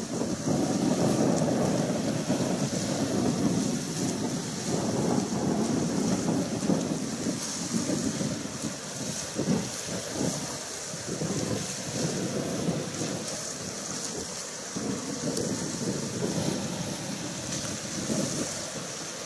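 Wind buffeting the microphone in uneven gusts, strongest in the first half, over a steady high hiss.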